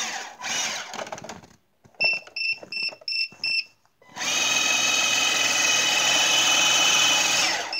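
Drill motor fitted in a toy RC snowmobile run at full throttle for about three and a half seconds, its rubber track spinning freely in the air, with a steady high whine. Before it comes a run of short high beeps, about three a second, and some rustling early on.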